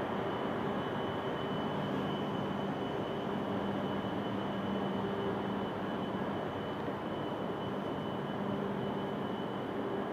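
Steady railway-station ambience: an even background hum and hiss with a constant high whine and a low machine hum that fades in and out.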